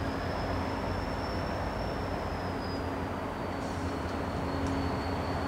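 Rocky Mountaineer passenger cars rolling slowly past on the rails: a steady rumble of wheels on track under a constant low diesel engine hum, with a faint thin high whine that sags slowly in pitch.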